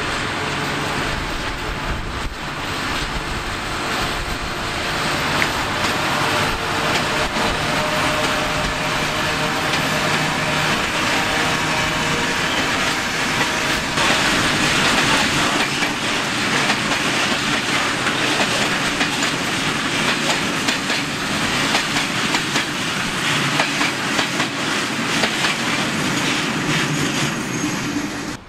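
A pair of class 753.7 diesel locomotives running past with a steady engine drone that fades after about ten seconds. A long train of open freight wagons follows, rolling by with wheels clattering over the rail joints, loudest about halfway through.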